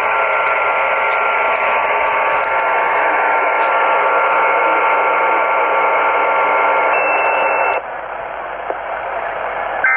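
Radio static: a steady, band-limited hiss with several faint steady whistling tones under it, dead air after the spoken test message. Near the end a brief higher whistle sounds, then the hiss drops suddenly to a quieter level.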